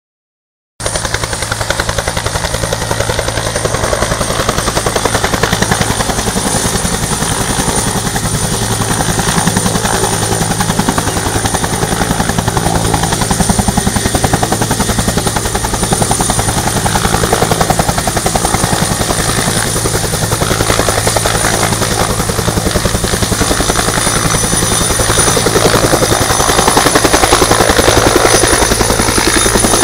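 Firefighting helicopter hovering low while it fills its water bucket: the rapid, steady chop of its two-blade main rotor with a high, steady turbine whine, growing louder near the end as it comes closer.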